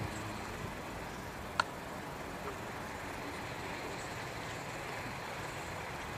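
Steady rushing jet-engine noise of a Boeing 747 (VC-25 Air Force One) in its landing flare just above the runway. A single short click about one and a half seconds in.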